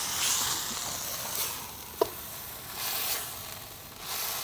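Small fish with spice paste sizzling as they fry in a steel wok, stirred and scraped with a metal spatula; the sizzle swells and eases as it is stirred. One short metallic clink of the spatula against the wok about two seconds in.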